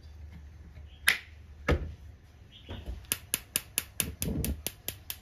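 Gas stove's spark igniter clicking rapidly, about five sharp clicks a second for two seconds, as the burner under a wok is lit; a single click and a knock come before it.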